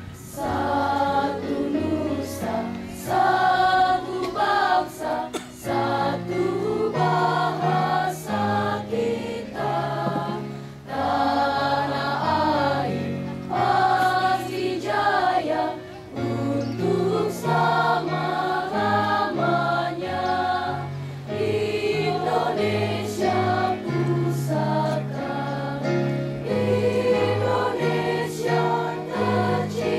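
A school choir of young voices singing in parts, accompanied by an electronic keyboard playing sustained low chord notes through a loudspeaker.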